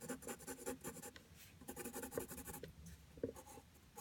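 Caran d'Ache 5B graphite pencil scribbling on paper in quick back-and-forth strokes, with a brief let-up in the middle.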